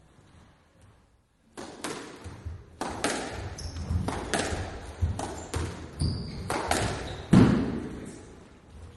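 Squash rally: a run of sharp ball strikes off rackets and court walls in quick succession, echoing in the court, beginning about a second and a half in. A couple of brief high squeaks come in the middle, and the heaviest hit is near the end.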